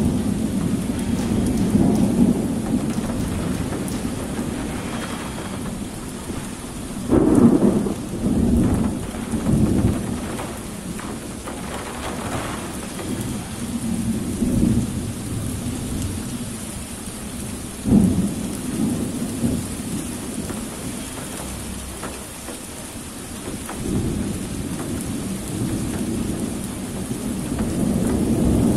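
Heavy thunderstorm: steady downpour of rain with repeated rolling thunder, the biggest rumble about seven seconds in and a sudden sharp thunderclap about eighteen seconds in.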